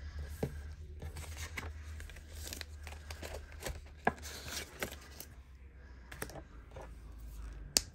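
Crinkling and rustling of cash and budget-binder pockets being handled, with scattered light clicks and one sharp click near the end.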